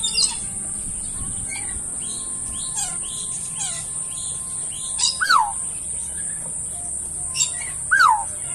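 Small birds chirping, with sharp downward-sweeping whistled calls, two loudest ones about five and eight seconds in, over a steady high hiss.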